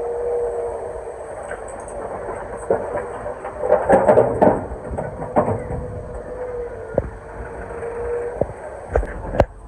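Excavator running with a steady whine over its engine rumble, with a loud cluster of knocks and clatters of stone about four seconds in and single sharp knocks scattered through the rest, as the wall's stones are broken and moved.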